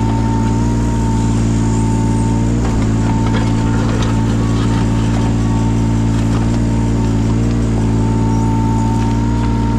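Yanmar 017 mini excavator's diesel engine running steadily, with a steady high whine over it. Its pitch dips briefly twice as the hydraulics take load, and there are faint scattered clicks.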